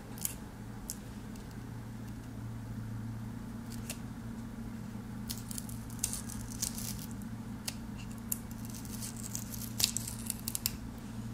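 Fingernail picking at and peeling the sticky foam waterproofing seal out of the end cap of a Samsung T7 Shield SSD: scattered clicks and short bursts of crackly tearing, thickest in the second half. A steady low hum runs underneath.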